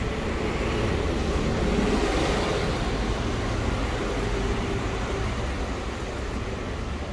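A car passing along the street, its engine and tyres swelling to a peak about two seconds in, then fading slowly.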